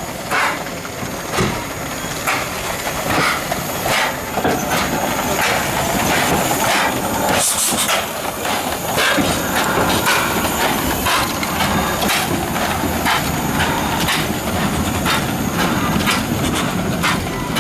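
A train running on rails: a steady rattling with frequent irregular clanks and knocks, and a brief high hiss about seven and a half seconds in.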